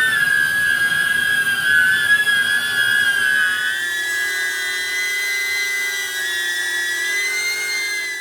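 DJI Neo mini drone's four motors and Gemfan ducted propellers whining while it flies, several close high tones beating against one another, the pitch shifting slightly upward about four seconds in.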